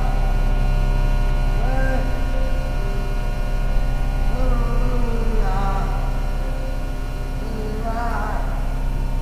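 Steady electrical hum made of many steady tones at once. Over it, wavering tones bend up and down a few times.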